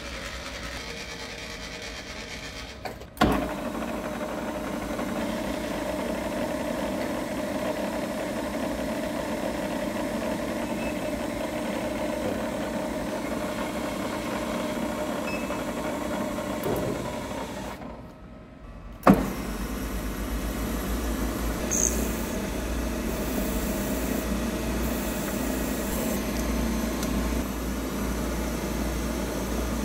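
Hafco BM-63VE milling machine's spindle running steadily with a hum. It comes in abruptly about three seconds in, drops away briefly around seventeen seconds, and starts again with a sharp click about two seconds later.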